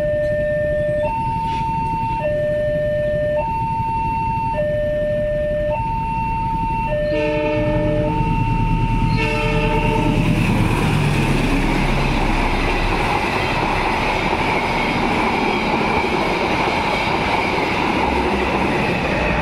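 Level-crossing warning alarm sounding a two-tone ding-dong, low and high notes alternating about once a second. About seven seconds in a locomotive horn blows, and from about ten seconds the rumble and wheel noise of the passing train drown out the alarm.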